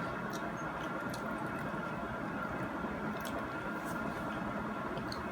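Soft eating sounds: a few small, scattered mouth and utensil clicks over a steady background hum.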